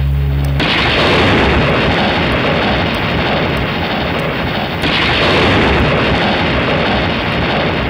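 Low held musical tones cut off about half a second in, and a loud, steady rushing noise begins, surging again near five seconds: a dramatic stage sound effect played over the theatre's loudspeakers.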